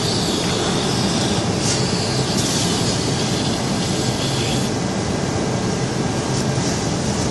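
TIG welding arc hissing, the hiss swelling and dropping back several times over a steady low rumble.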